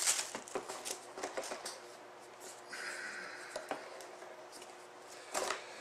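Cardboard trading-card box handled in the hands: rubbing and rustling as it is turned over, with a few sharp clicks and taps.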